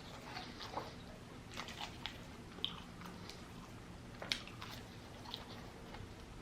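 A person chewing a mouthful of Wendy's hot honey chicken sandwich close to the microphone, with scattered small crunches and wet mouth clicks and one sharper crunch about four seconds in.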